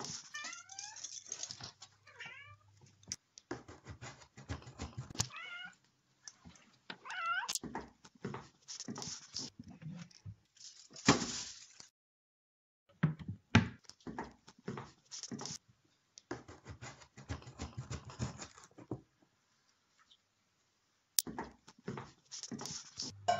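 Meowing, several short rising-and-falling calls in the first eight seconds or so, over repeated clattering and tapping of small hard objects.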